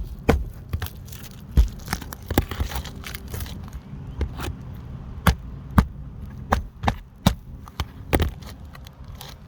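Irregular sharp knocks and clicks, about one or two a second, over a low rumble.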